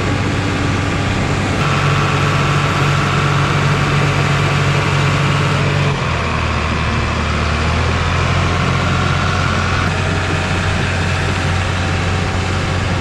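Bulldozer's diesel engine running, its note shifting about two and six seconds in, with a higher whine between about two and ten seconds in.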